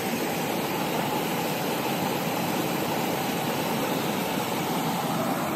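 A steady, even rushing noise that stays unchanged, with no distinct events.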